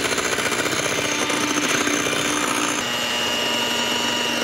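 Electric hand mixer running steadily, its beaters whipping egg whites and sugar into meringue toward stiff peaks. About three seconds in, the motor's hum drops a little in pitch and a thin higher whine joins it.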